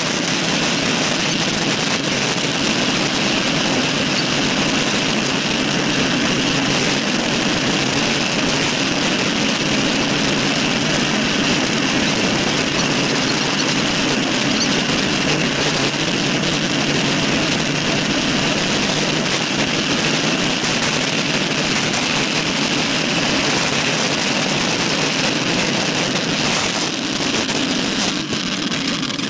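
Steady rushing noise of wind over a handlebar-mounted camera microphone and tyre hum from a road bike riding at speed, easing off near the end as the bike slows.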